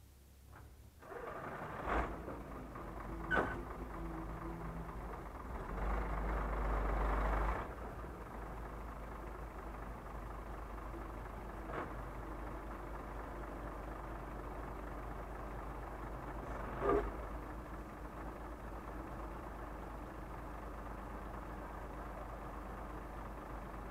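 Tipper truck's diesel engine starting about a second in and then running steadily, revved up briefly around six seconds in, with a few sharp knocks.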